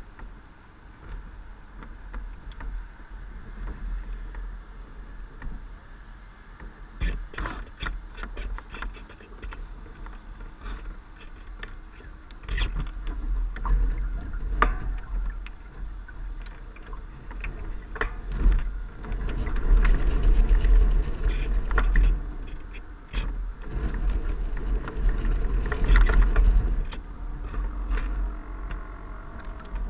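Water slapping and splashing against the hull of a small radio-controlled sailboat under way, heard from a camera on its deck, over a low wind rumble on the microphone. The slaps are irregular and grow louder and busier about halfway through.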